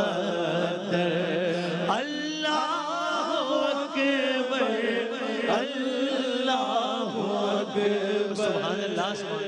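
Male voices chanting an Urdu hamd. A lead voice winds through long, ornamented wavering notes over a lower held tone from the other voices.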